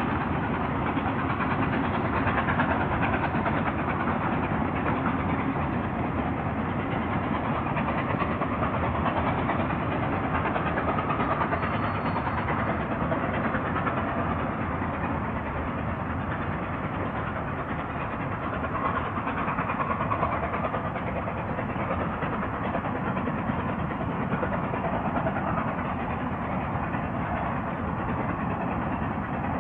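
Railway train running: steady, dense locomotive and rolling noise.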